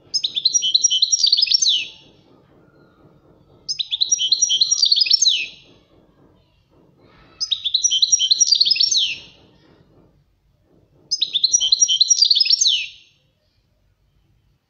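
European goldfinch song: four bursts of the same bright, twittering phrase, each about two seconds long, evenly spaced with short pauses between. This is a goldfinch tutor song of the kind played to teach young birds.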